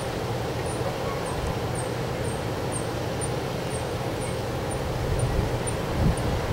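Wind blowing steadily, with gusts buffeting the microphone in low rumbles about five and six seconds in.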